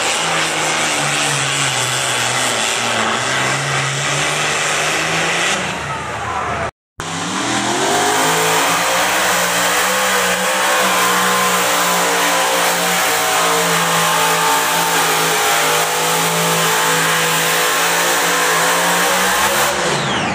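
Pulling vehicle's engine running hard at full throttle during a pull. After a cut about seven seconds in, a second run's engine climbs in pitch, holds steady, then drops near the end.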